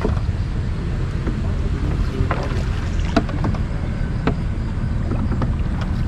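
A small rowboat on the water: a steady low rumble with a few sharp knocks scattered through it.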